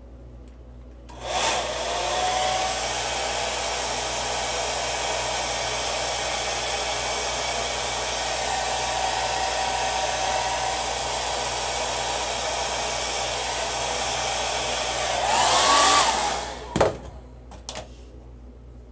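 Handheld hair dryer switching on about a second in and blowing steadily on sprayed hair, with a faint whine under the rush of air. Near the end it briefly gets louder, then cuts off, followed by a sharp click.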